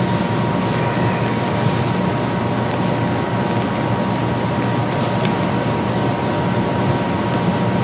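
Steady room noise through the meeting's microphone feed: an even hiss and low hum with a thin, constant high whine, unchanging throughout.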